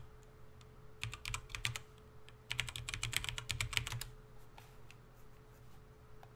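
Typing on a computer keyboard: two quick runs of keystrokes, one about a second in and a longer one from about two and a half to four seconds in, with a faint steady hum underneath.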